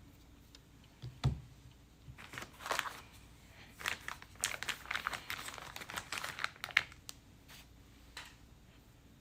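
Crinkling of plastic wrapping while a lump of stoneware clay is handled, in two spells of rustling. It follows a single thump about a second in.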